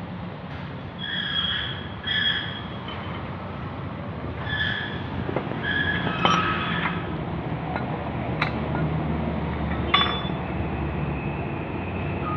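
Metal clinking during work on a bent motor-scooter wheel rim: short ringing tones, then three sharp metallic strikes about two seconds apart in the second half, over a steady low hum.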